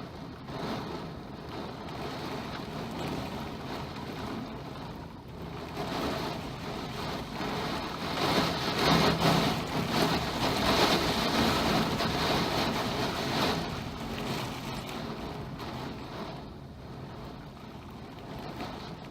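Typhoon wind and heavy rain: a steady rush of wind-driven rain that swells into a stronger gust about eight seconds in and eases again after about fourteen seconds.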